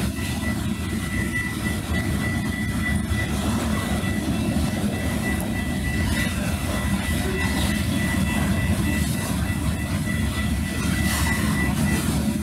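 Wisconsin & Southern freight train's covered hopper cars rolling past, a steady rumble with a faint, steady high whine over it. The sound is dulled and distorted by the camera's wind-noise filter turned all the way up.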